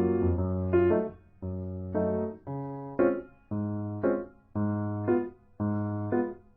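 Background music in short repeated phrases about a second long, each with a brief gap before the next.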